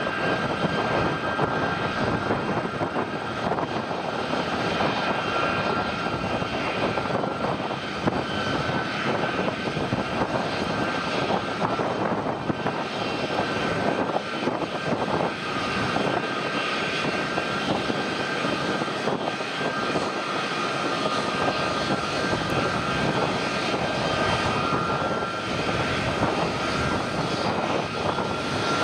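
Jet aircraft engines running steadily: a constant whine of two close tones over an even rush of engine noise, holding the same level throughout.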